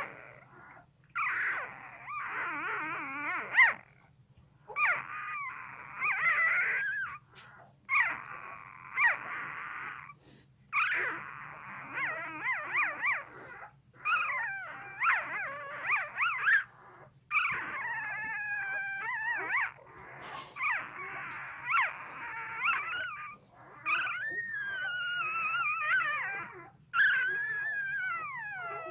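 One-week-old pit bull puppy whimpering and making small howls in its sleep while dreaming: a dozen or so bouts of high, wavering cries that glide up and down, with short pauses between them. A faint steady low hum runs underneath.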